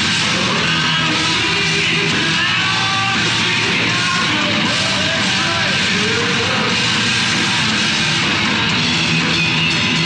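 A heavy metal band playing live at full volume, with distorted electric guitars, bass guitar and drums in a dense, unbroken wall of sound.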